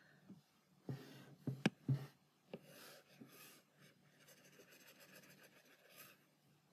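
Stylus tapping and sliding on a tablet screen while drawing a highlight: a few light taps, then faint scratchy strokes.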